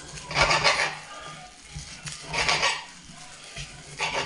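Kitchen knife slicing through raw chicken breast and scraping on a glass chopping board, three strokes roughly two seconds apart.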